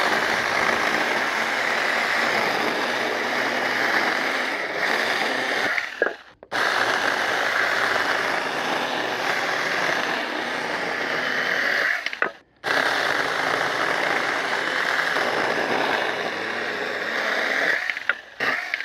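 Cordless handheld 4-inch battery chainsaw cutting through a small log, a steady high whir with the chain chewing the wood. It breaks off briefly twice, about six and twelve seconds in, and ends in a few short bursts.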